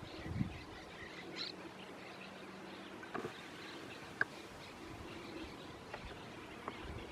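Faint outdoor nature ambience with a few scattered short chirps and ticks, and a soft low thump about half a second in.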